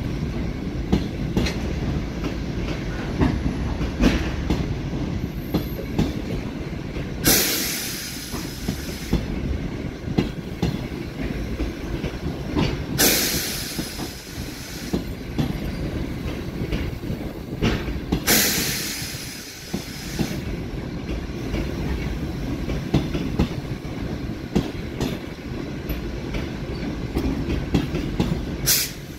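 Passenger coaches of a departing long-distance train rolling slowly past along the platform: a steady low rumble, with wheels clicking over the rail joints. A loud hiss swells and passes three times, each about two seconds long, with a shorter one near the end.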